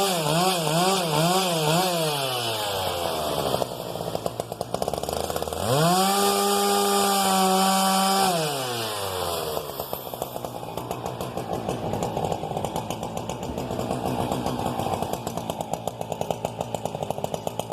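Husqvarna 395XP chainsaw's 94 cc two-stroke engine revved to full throttle with its pitch wavering, then dropping back to idle. About six seconds in it revs up again, holds high for about two seconds, then falls back to a lumpy idle.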